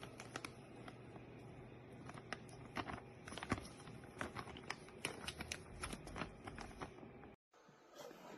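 Scattered light clicks and taps, as of small objects being handled, over a steady low hum; the sound cuts off abruptly a little after seven seconds.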